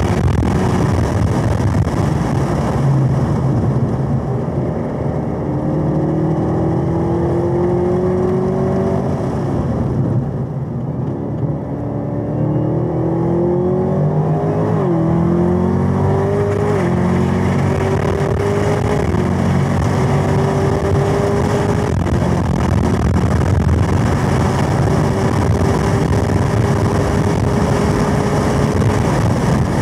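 Supercharged V8 of a 2021 Camaro ZL1 1LE at full throttle on track: the engine note climbs, falls away as the car lifts and brakes for a slow corner, then climbs again out of it with quick upshifts, each a sudden drop in pitch.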